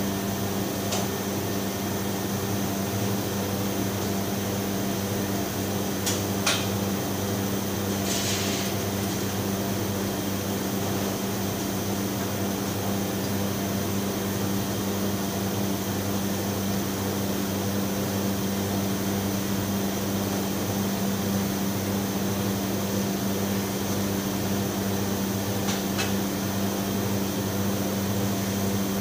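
Steady hum of commercial kitchen machinery, with a strong low drone and a thin high tone over it. A few light knocks come through, with a short hiss about eight seconds in.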